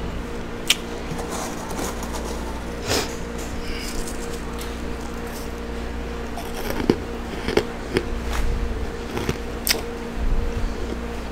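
Scattered crisp crunches and crackles of hard freezer frost, scooped up with a gloved hand and chewed, over a steady low hum.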